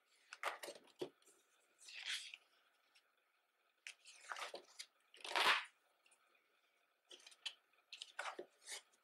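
Calendar pages being turned by hand, a paper swish or rustle with each turn, coming every second or two. The loudest turn falls a little past the middle.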